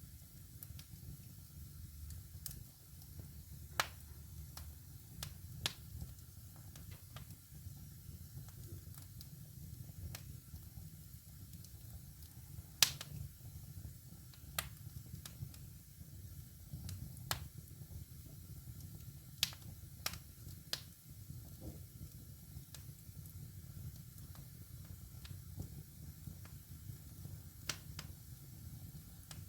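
Wood fire in a fireplace crackling, with sharp, irregularly spaced pops (the loudest about 13 seconds in) over a low steady rumble.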